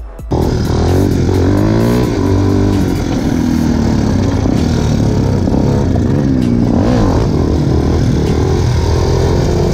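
Yamaha Raptor 250 quad's single-cylinder four-stroke engine revving up and down as it is ridden and wheelied, cutting in abruptly just after the start.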